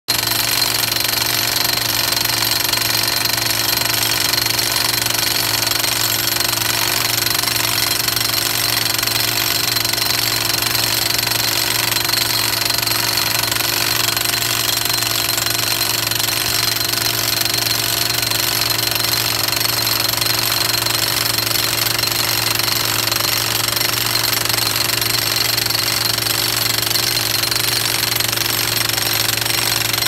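50-joule petrol jackhammer hammering rapidly and steadily without a break, driving a steel micro-pile rod into firm ground.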